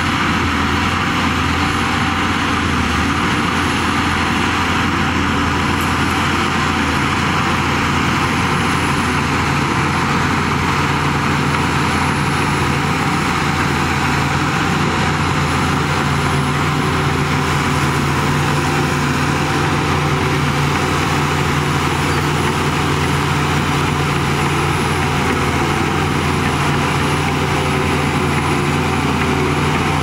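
Shantui crawler bulldozer's diesel engine running steadily under load as the blade pushes a pile of soil, a deep continuous drone with a low note that grows stronger about ten seconds in.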